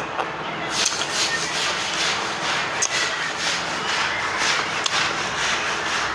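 Rhythmic scraping strokes, about three a second, starting about a second in.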